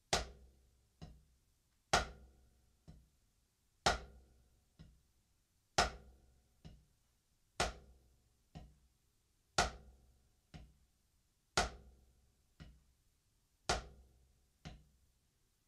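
Drumsticks striking a rubber practice pad in a slow, even pattern of alternating downstrokes and upstrokes: a loud accented hit followed by a softer one, about one stroke a second.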